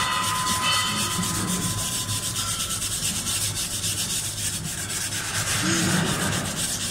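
A hand wire brush scrubbing up and down a steel weld in fast, rhythmic strokes, cleaning the freshly laid cap pass of a MAG butt weld.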